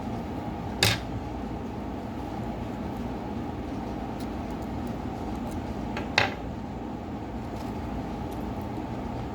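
Steady fan-like hum with two sharp clicks, one about a second in and a louder one about five seconds later.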